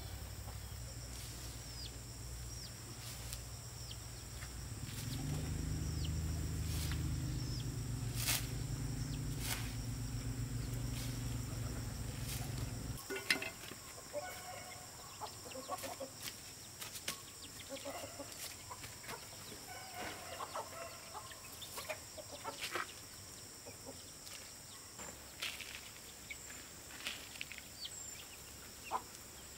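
Chickens clucking over a steady high insect buzz. A low steady hum runs through the first part and cuts off abruptly a little under halfway. After that come scattered soft scrapes and crumbles of soil being scooped by gloved hands into a planter.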